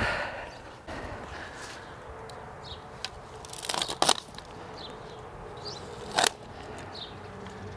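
Long-handled loppers cutting climbing rose canes: a short crunching cluster of snips about four seconds in and one sharp snap about two seconds later, with the rustle of branches and tool handling around them.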